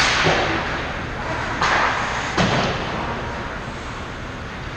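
Ice hockey play around the net: sharp knocks and scrapes of sticks, skates and puck, the first right at the start and two more about one and a half and two and a half seconds in, over a steady hum of rink noise.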